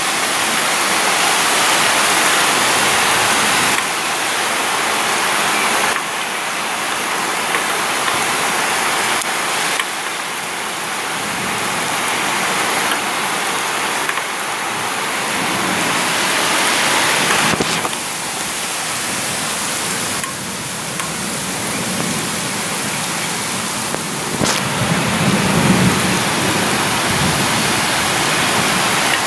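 Heavy rain falling steadily in a thunderstorm, with a low rumble of thunder swelling near the end.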